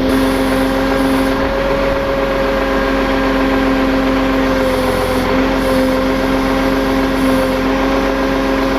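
Tow truck engine running steadily at a constant speed, with an unchanging hum.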